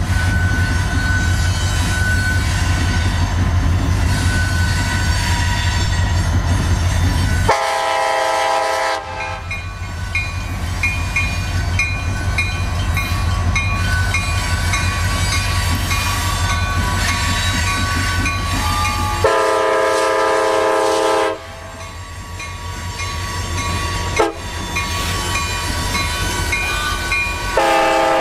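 Nathan K5LA air horn on a CSX SD70MAC diesel locomotive sounds three blasts: one of about a second and a half, one of about two seconds, and a third starting near the end. Under the horn the diesel locomotives rumble steadily as they pass close by, and between the blasts a bell dings about twice a second.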